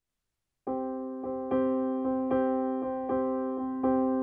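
Background music: a keyboard with an electric-piano sound playing a slow pattern of repeated chords, each struck note fading before the next. It starts suddenly a little under a second in, after total silence.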